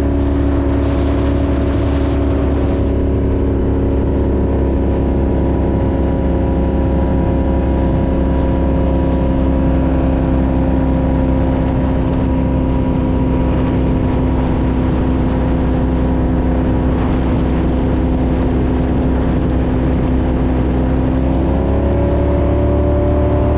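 Donzi 18 speedboat's NASCAR V8 engine running at steady speed under way, with a heavy rumble of wind and water. The engine pitch rises a little near the end.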